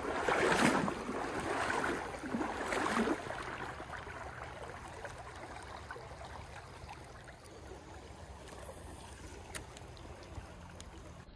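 Shallow stream water sloshing and splashing for the first three seconds, then settling into a steady rush of flowing water, with a faint click near the end.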